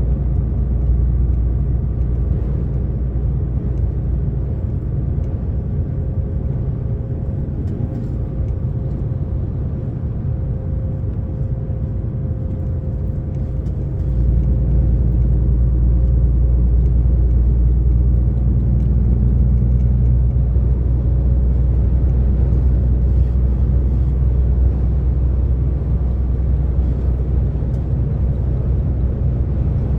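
DAF XF 460 truck driving at motorway speed: a steady diesel engine and road rumble. The deep rumble gets clearly louder about 14 seconds in and holds there.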